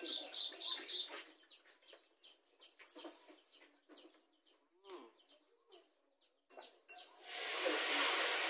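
Chickens clucking and peeping, a run of short high falling notes at about three a second with a few lower calls among them. A loud steady hiss comes in about seven seconds in.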